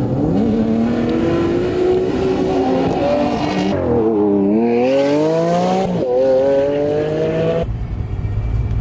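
Sports-car engines revving and accelerating in a quick run of spliced cuts: the engine pitch climbs, drops and climbs again twice, then switches suddenly to a steady low rumble near the end.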